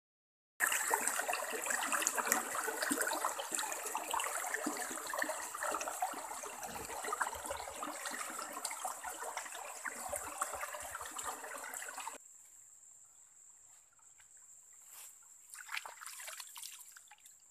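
Shallow, clear stream rushing and splashing over rocks, loud and steady. It cuts off suddenly about 12 seconds in, leaving a much quieter scene with a few faint splashes of hands being rinsed in the water, and a thin, steady, high-pitched insect tone.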